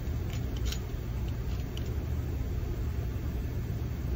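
Steady low rumble of body-shop background machinery, with a few faint light clicks in the first two seconds as the slide hammer and dent-repair power gun are handled.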